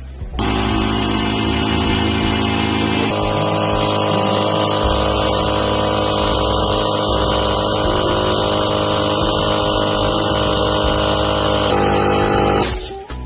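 Motomil air compressor's motor and piston pump running steadily and loudly, starting about half a second in, changing pitch at about three seconds in and again near the end, then cutting off.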